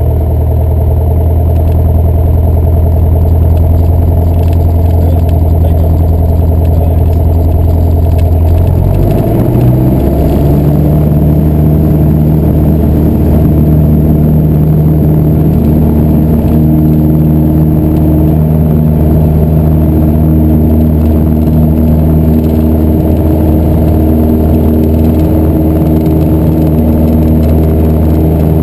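Piper PA-28-181 Archer II's four-cylinder Lycoming O-360 engine and propeller, heard from inside the cockpit. It runs at low power, then is throttled up about nine seconds in with a quick rise in pitch, and holds steady at takeoff power through the takeoff roll.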